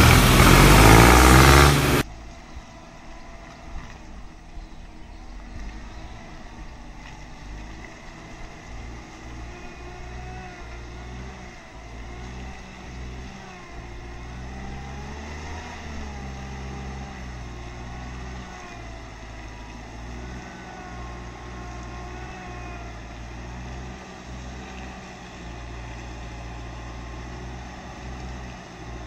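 A loud pitched sound cuts off abruptly about two seconds in. Then birds chirp now and then over a low steady rumble.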